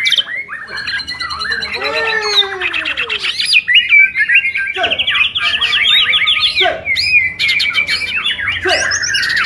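White-rumped shamas (murai batu) in full song, several birds at once. They deliver fast runs of rapid repeated notes, sliding whistles and trills that overlap without a break.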